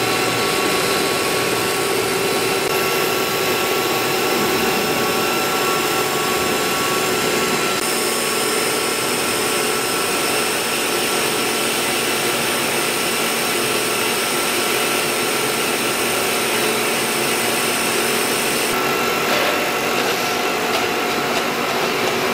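PVC pipe extrusion line running: a steady, loud mix of machine hum and hiss from its motors, pumps and fans, with several steady whines. A higher hiss comes in about eight seconds in and drops away near the end.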